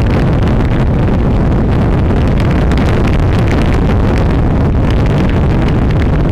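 Wind rushing over a helmet-mounted camera's microphone while riding a Honda NC700 motorcycle on a gravel road: a loud, steady rumble with the bike's running noise beneath it.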